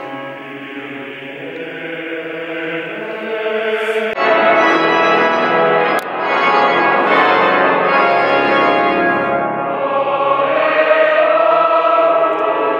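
A choir sings held chords with pipe organ. About four seconds in, the sound cuts abruptly to louder pipe organ playing full chords.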